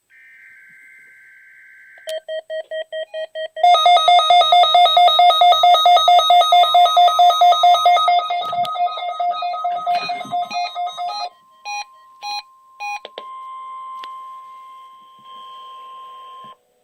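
NOAA Weather Radio test alert. It opens with a short burst of the buzzy SAME digital header, then a weather radio's rapid pulsed alert beeping that gets much louder about three and a half seconds in. Partway through, the steady NWS warning alarm tone joins the beeping, and it carries on alone after a few last scattered beeps.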